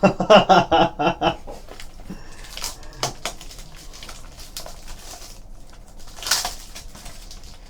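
Trading cards and pack packaging being handled on a table: scattered clicks and crinkling, with a louder rustle of wrapper about six seconds in.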